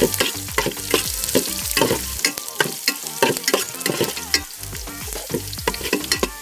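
Ginger and garlic frying in hot coconut oil, sizzling, while a spoon stirs and scrapes the pan in quick, irregular strokes.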